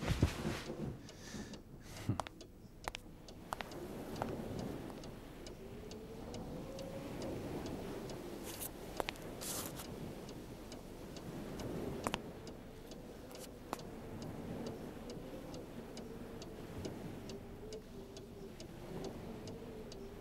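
A clock ticking steadily and regularly in a quiet room. A rumble of thunder dies away in the first seconds, and a faint low tone wavers up and down beneath the ticking.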